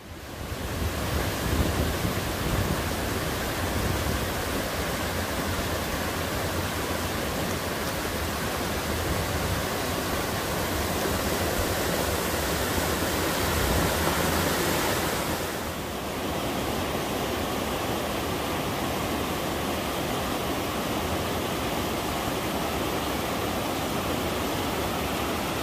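Mountain stream in a forested valley, water running with a loud, steady rush. The tone shifts slightly about fifteen seconds in.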